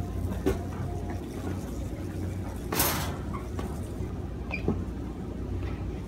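Store room tone: a steady low hum under the open space, with a brief rustling burst a little before halfway and a few faint knocks.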